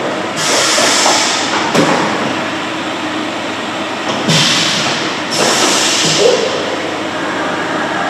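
Haas VF-4SS CNC vertical mill running its programmed pocket-milling cycle: a steady machine hum broken by three bursts of loud hissing inside the enclosure, with a sharp click about two seconds in.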